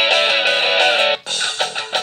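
Guitar-based phone ringtone from the Kyocera DuraXE set playing, breaking off abruptly about a second in, with a different-sounding ringtone tune starting right after.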